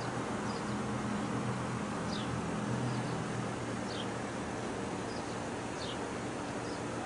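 Outdoor background: a steady low hum under an even hiss, with a short high falling chirp repeated every second and a half or so.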